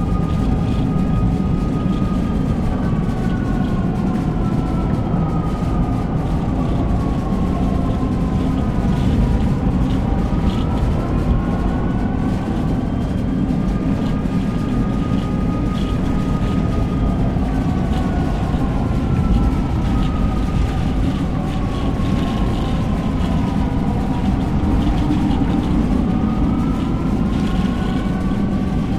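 Outdoor tornado warning siren wailing in the distance, its pitch slowly falling and rising again about every thirteen seconds, over a loud, steady rumble of strong wind.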